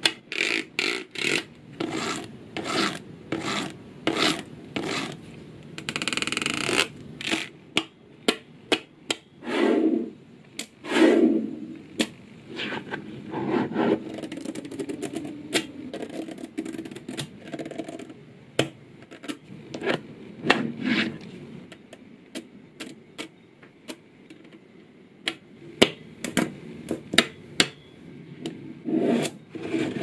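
Small magnetic balls clicking and snapping together in quick, irregular clicks as rows and slabs of them are pressed into place, with the balls rubbing and scraping against each other and the tabletop. A brief rustling scrape comes about six seconds in.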